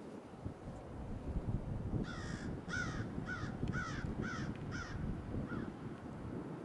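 A crow cawing: six harsh caws in quick succession, about half a second apart, starting about two seconds in, then one fainter caw.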